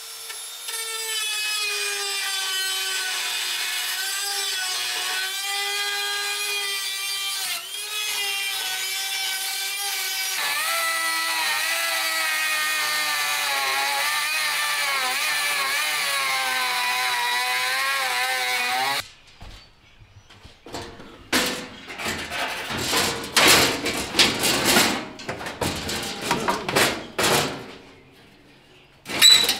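Handheld rotary tool with a cut-off wheel grinding through rusted sheet-steel floor pan, a high whine whose pitch wavers and sags as the wheel bites. It cuts off about nineteen seconds in, and irregular scraping and knocking of sheet metal being handled follows.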